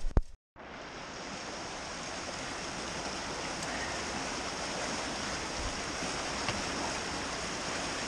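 Kern River rapids rushing steadily over boulders. The rush starts after a couple of sharp knocks and a brief dead gap in the audio about half a second in.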